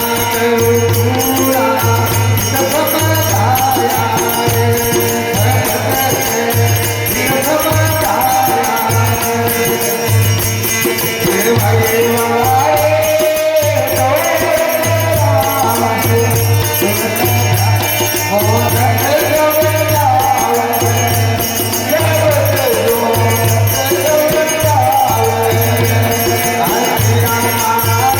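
Rajasthani bhajan, devotional folk music: a melody sliding between notes over a steady pulsing drum beat and jingling, rattling percussion.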